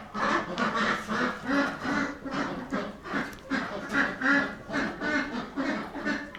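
An animal calling in quick, evenly repeated short calls, about two to three a second.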